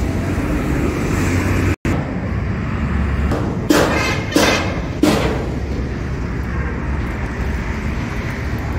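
Steady low engine rumble, with three sharp knocks about two-thirds of a second apart near the middle.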